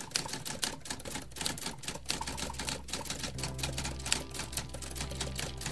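Typewriter keystroke sound effect: a rapid run of clicks, several a second, as on-screen text is typed out. A low steady hum comes in underneath about two seconds in.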